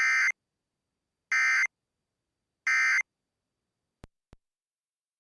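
Emergency Alert System end-of-message data burst: three short, harsh digital squawks about 1.3 seconds apart, each a rapid warble of two data tones, marking the end of the alert. Two faint clicks follow about four seconds in.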